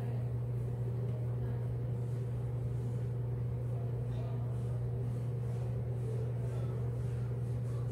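A steady low hum throughout, with faint light rustling of hands working a balloon neck and plastic funnel.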